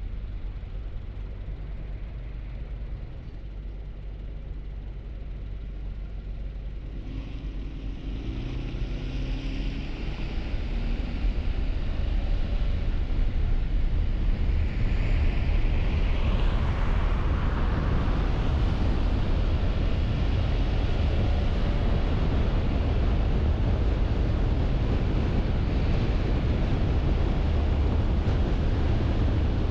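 Car driving: engine and tyre noise rise as it speeds up, from about seven to twelve seconds in, then steady road noise at speed.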